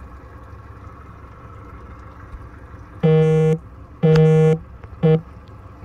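Boat horn sounding three times about a second apart: two half-second toots and a short third. Underneath is the steady low idle of a 200-hp Yamaha outboard.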